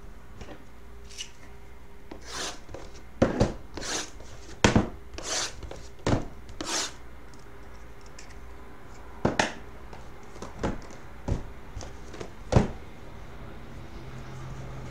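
Hands handling cardboard trading-card boxes: a scattered series of short rubs, scrapes and taps, with pauses in between.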